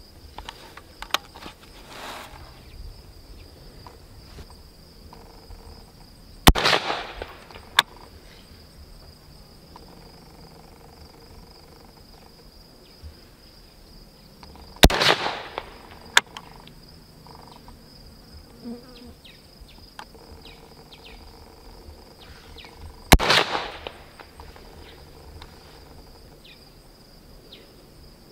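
H&K SL8-1 semi-automatic .223 rifle fired three single shots about eight seconds apart, each sharp report followed by a trailing echo, with a fainter crack about a second and a half after the first two. A steady high insect drone runs underneath.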